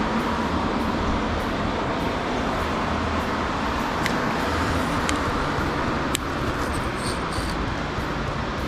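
Small rental fishing boat's motor running steadily while under way, mixed with wind and water noise and a few faint clicks.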